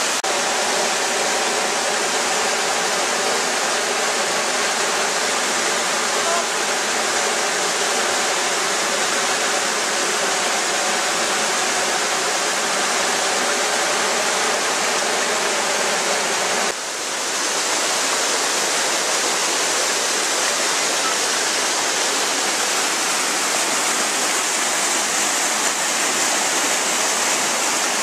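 Steady rush of a stream cascading over rocks, with a short dip in level about two-thirds of the way through before the rushing continues.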